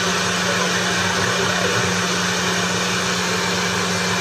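Steady hiss of radio static with a steady low hum, from a homemade crystal radio set tuned around the CB band and played through a guitar amp.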